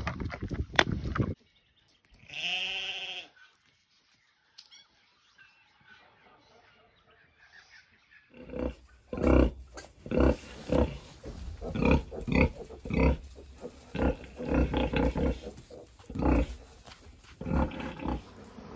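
Sow grunting in a steady rhythm, about two short grunts a second, while her newborn piglets suckle: the nursing grunts of a sow letting down milk. Earlier, a single drawn-out pitched call about two seconds in, then a few seconds of quiet.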